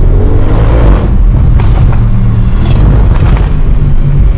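Audi RS6's twin-turbo V8 engine running loud under way, heard from inside the cabin, rising in pitch as it revs up about a second in and then holding.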